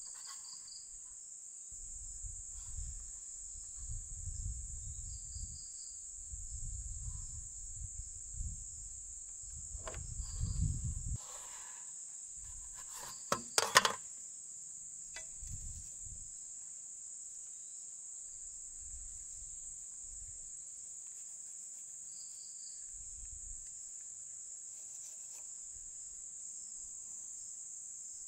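A steady, high-pitched chorus of insects. Between about 2 and 11 s there is low rumbling from handling and movement. Around 13 to 14 s, sharp clicks and knocks come from the tools being handled.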